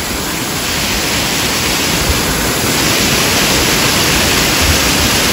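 Water rushing over a small waterfall: a steady, loud rush that swells slightly about a second in.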